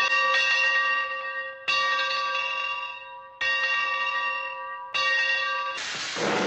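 A metal bell struck four times, about one and a half seconds apart, each stroke ringing and fading before the next. Near the end a loud hiss cuts in and continues.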